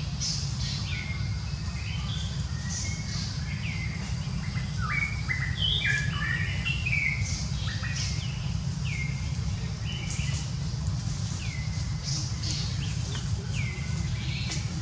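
Wild birds chirping in many short, repeated calls, mostly quick falling notes, with a busier flurry of notes around the middle, over a steady low rumble.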